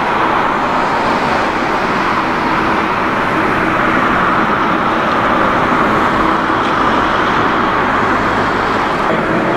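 Boeing 777-300ER's GE90 turbofan engines at taxi power, a steady rushing jet noise with a faint low steady hum under it.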